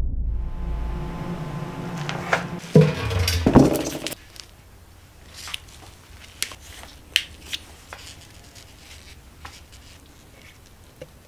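A low musical boom dies away, then plastic sheeting and foil tape crinkle and crackle as they are peeled off a resin casting mould, in a string of scattered sharp crackles and clicks.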